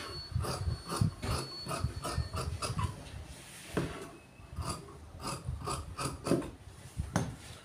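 Large tailoring shears snipping through shirt cloth on a table: a run of quick cuts about three a second, a short pause about three seconds in, then more cuts.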